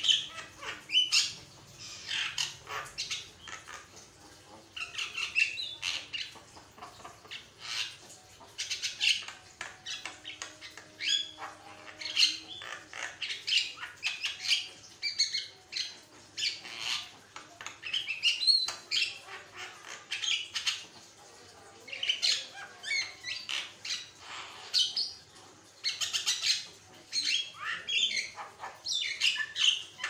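Javan myna (jalak kebo) singing vigorously: a long, varied run of squawks, chirps and whistles in quick bursts, broken by short pauses between phrases.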